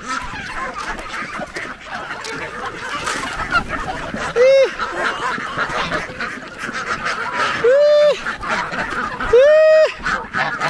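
Domestic geese honking: three loud, flat honks, one about halfway through and two close together near the end, over the busy calling of a crowded flock of geese, ducks and chickens.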